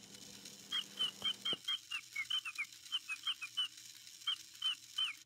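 Little Live Pets toy chick chirping: a run of short, high peeps, each dropping in pitch, about four a second, with a brief pause near the end before a few more.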